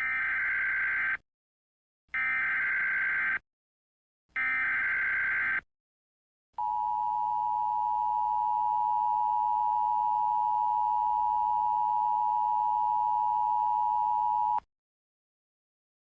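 Emergency Alert System alert start. First come three identical digital header bursts (SAME data tones), each about a second long with short gaps between them. Then the two-tone EAS attention signal (853 and 960 Hz) sounds steadily for about eight seconds and cuts off abruptly.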